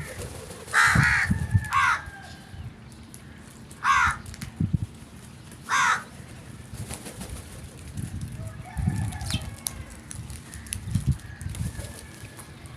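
Crows cawing: four harsh caws in the first six seconds, the first the longest, with low irregular thuds and rustling underneath.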